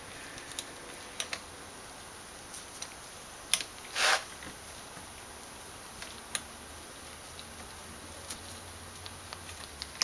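A tap in a bar tap wrench being turned by hand to cut threads into an aluminium door-closer cylinder, cut dry without lubricant: a few faint scattered clicks and ticks, with a brief louder rush of noise about four seconds in.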